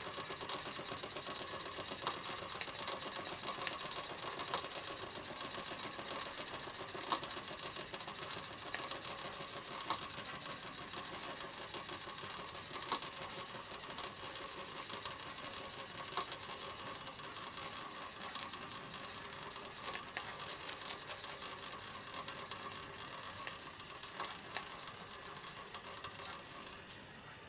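1929 Meccano steam engine's single-acting oscillating cylinder running in steam: a quick, even beat of exhaust puffs over a steady hiss. The beats grow gradually quieter.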